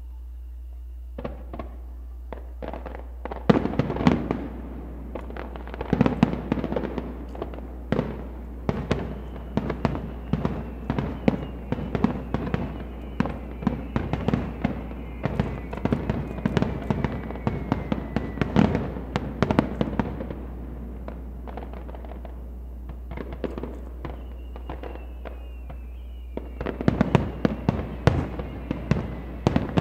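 Aerial firework shells bursting in a rapid string of bangs. The bangs start about a second in, thin out past the middle, and come thick again near the end, with faint falling whistles in places.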